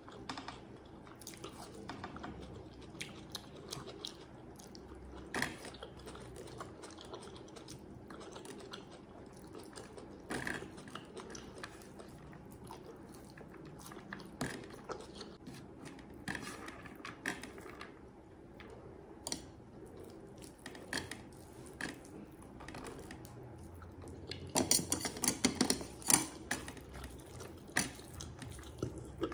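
Close-up chewing and mouth sounds of someone eating chicken biryani by hand, with scattered short clicks and smacks. Near the end there is a denser run of louder clicks.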